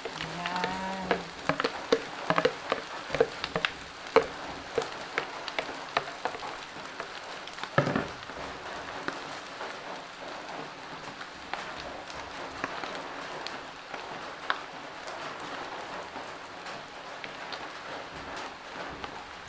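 Rice and mixed vegetables sizzling in a hot pan, with a spatula clicking and scraping against the pan again and again, and a louder knock about eight seconds in. A brief low hum sounds in the first second.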